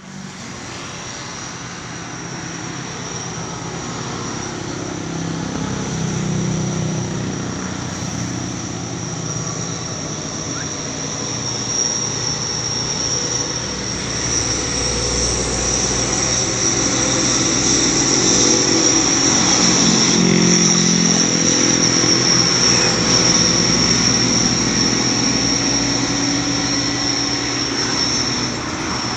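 Heavily loaded Mitsubishi Fuso truck's diesel engine labouring slowly uphill, a steady low rumble that grows gradually louder, with a steady high-pitched whine above it.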